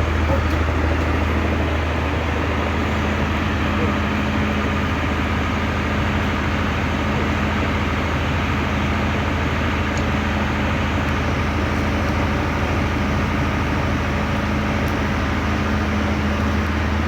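Bandsaw sawmill running steadily as it saws a trembesi (rain tree) log, a constant motor hum under the continuous noise of the blade.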